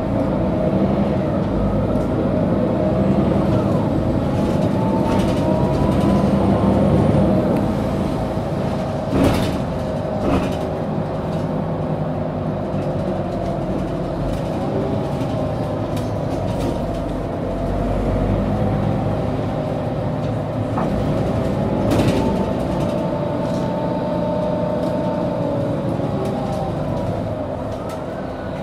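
Mercedes-Benz O530G Citaro articulated city bus driving, heard from inside: steady engine and road rumble with a drivetrain whine that rises and falls in pitch as the bus speeds up and slows. A few sharp knocks or rattles cut through, the loudest about nine seconds in and another about 22 seconds in.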